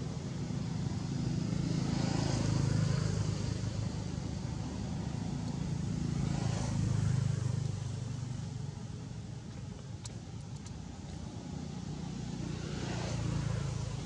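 Road traffic: a steady engine drone, with passing vehicles swelling and fading about two seconds in, again around six to seven seconds, and near the end.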